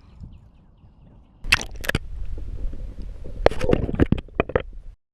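Footsteps and rustling on the bank with a low rumble, starting about a second and a half in after a quiet start, with a string of sharp knocks near the middle.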